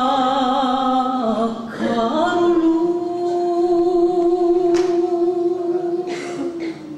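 A young woman singing a Romanian folk song solo. She sings a wavering, ornamented note that slides down about a second and a half in, takes a short breath, then holds one long steady note that fades out near the end.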